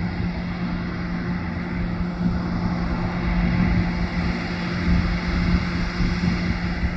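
John Deere 8400R tractor's six-cylinder diesel running steadily under load while pulling a disc harrow. It makes an even engine drone with a constant hum.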